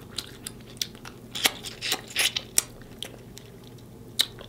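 Close-miked mouth sounds of biting and chewing snow crab leg meat: a string of sharp clicks, thickest about two seconds in.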